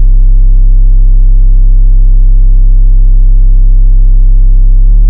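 Loud, steady, deep electronic drone: one low synthesized tone with a stack of overtones, held without change. Its upper overtones thin out near the end, and then it cuts off suddenly.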